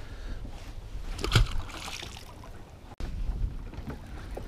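Wind rumbling on the microphone over a small boat on choppy water, with a single knock about a second and a half in. The sound breaks off for an instant about three seconds in.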